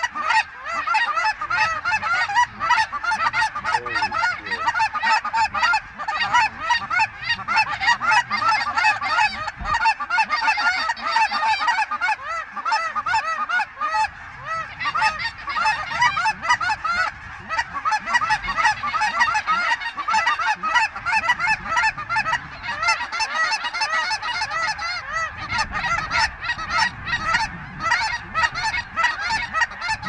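A huge flock of geese calling overhead: a dense, unbroken chorus of many overlapping honks.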